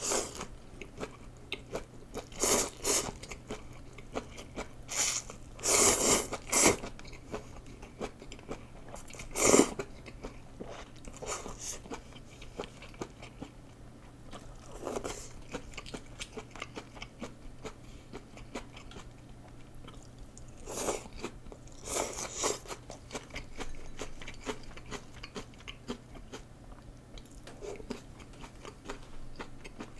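Close-miked eating of rice noodles and fresh lettuce: steady wet chewing and crunching, broken by several louder slurps of noodles spread through, the loudest about ten seconds in.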